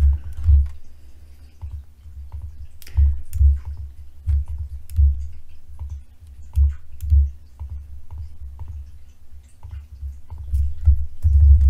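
Computer mouse clicks and keyboard key presses, irregular and about one every second or so, mixed with dull low thumps.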